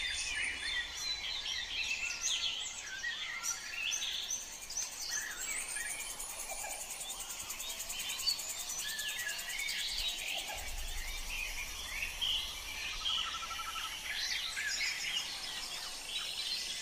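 A kapas tembak bulbul singing a busy run of quick, varied chirps, whistles and short trills, over a steady background hiss. It is a master song recording, of the kind played to captive songbirds for them to copy.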